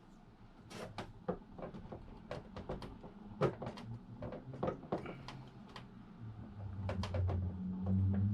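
Irregular clicks and knocks of hand work on an RC boat's drive, the flex cable and hard plastic and metal parts being handled. A low hum comes in near the end.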